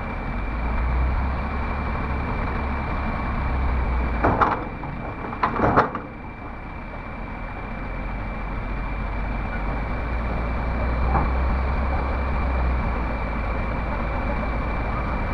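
Komatsu PC300 excavator's diesel engine running steadily at low throttle, with a steady high whine, while the boom and arm fold in. There are two loud metallic clunks about four and six seconds in. The engine is wheezy and stalls at full throttle, which the operator puts down to overheating or a clog without being sure.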